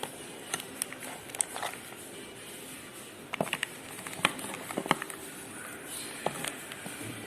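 Scattered sharp clicks and light metallic knocks of hand tools at work on a Daewoo Nexia's front suspension while its ball joint is being replaced, over a steady hiss.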